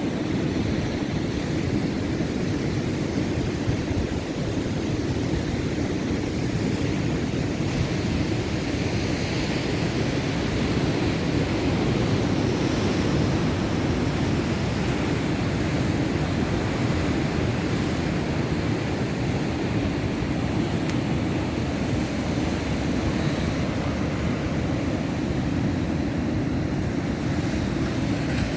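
Rough, stormy sea with surf breaking continuously in a steady wash of noise, heaviest in the low end, with wind buffeting the microphone.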